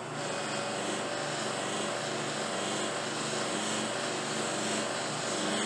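Electric buffing machine running, its felt wheels spinning, with a briar pipe held against a wheel loaded with white diamond polishing compound. A steady whir and hiss that steps up in level right at the start.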